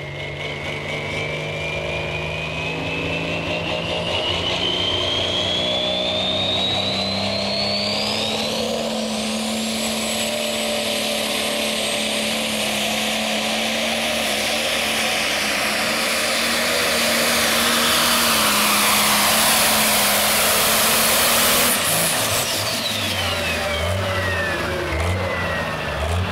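Turbocharged John Deere super stock diesel pulling tractor running hard under load while pulling the sled. A high whine climbs steadily over the first nine seconds as the turbo spools up. About 22 seconds in, the throttle is cut and the whine falls away as the engine winds down.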